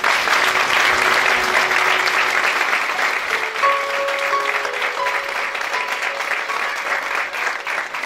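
Audience applauding, a dense, steady patter of many hands clapping. A soft melody of held notes plays underneath from about two seconds in.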